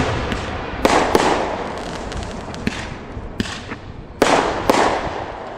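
Aerial fireworks bursting: a series of sharp booms, about seven, each with a long echoing tail, the loudest pairs about one second and about four seconds in.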